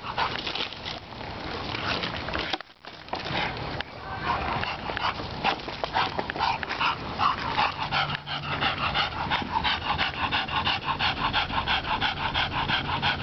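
English bulldog puppy panting, quick rhythmic breaths about four a second, out of breath from play.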